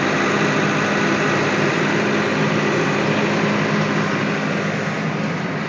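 Backhoe diesel engine running steadily at a constant speed, easing off slightly near the end.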